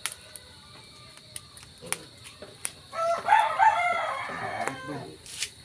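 A rooster crows once, starting about three seconds in and lasting about two seconds; it is the loudest sound. Around it, a spatula clicks and scrapes against a metal wok every so often.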